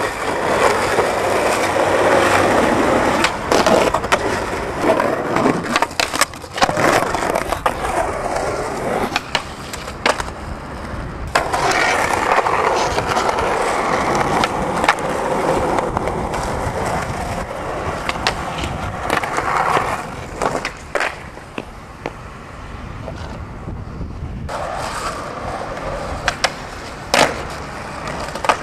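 Skateboard wheels rolling on pavement, with sharp clacks scattered throughout as the board is popped and landed. The rolling noise changes or drops out at a few points.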